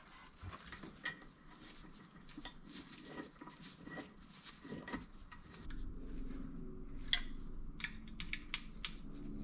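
Scattered light clicks and metallic clinks of vacuum pump parts being handled and set down on a workbench. A faint low hum comes in about halfway through.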